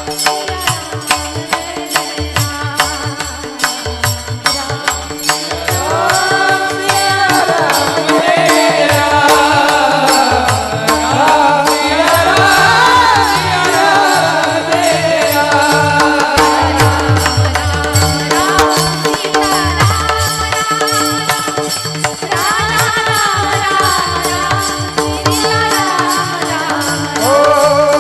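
Devotional bhajan music: a hand drum beats a rhythm under steady held drone notes, and a louder melody line that bends in pitch comes in about six seconds in.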